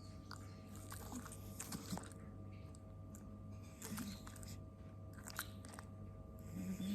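Micro pig snoring faintly: a few short, low grunting snores spaced seconds apart, with scattered small mouth clicks in between.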